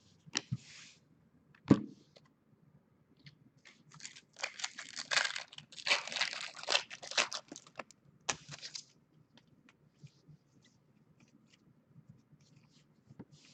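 A foil trading-card pack wrapper being torn open and crinkled: a dense run of tearing and crackling from about four to nine seconds in, after a sharp tap near the two-second mark.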